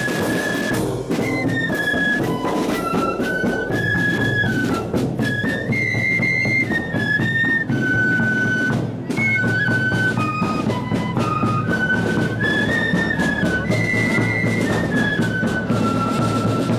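Marching flute band playing a tune: a stepping, high flute melody carried by massed flutes over a steady beat of drums.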